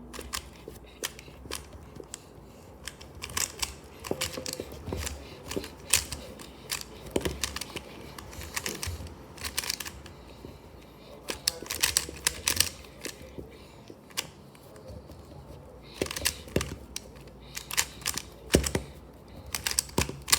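Magnetic speedcube being turned quickly during a timed solve: runs of rapid plastic clicks and clacks, broken by short pauses between bursts of turns.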